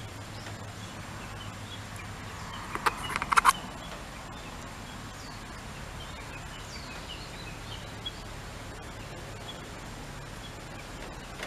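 Outdoor ambience with faint birds chirping here and there over a steady low hum. A quick run of sharp clicks about three seconds in is the loudest sound.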